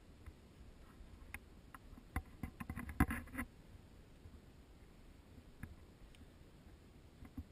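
Quiet outdoor background hiss, broken from about two to three and a half seconds in by a quick flurry of knocks and scrapes, loudest around three seconds: handling noise as the camera is moved and tilted.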